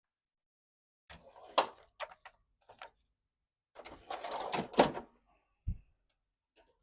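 Clicks and knocks of a photocopier's covers and parts being handled, with a longer rattling stretch and two sharp knocks in the middle and a low thud near the end.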